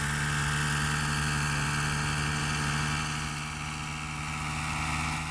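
Cartoon sound effect of a propeller hat spinning: a steady, engine-like mechanical whirr that dips slightly partway through and swells again near the end.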